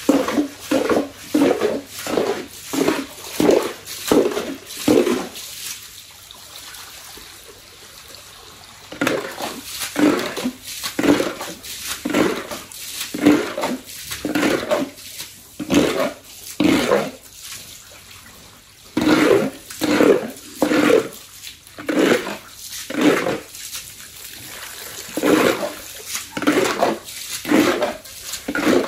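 A sow grunting over and over, about two grunts a second, stopping for a few seconds twice, while hose water runs and splashes on the pen floor.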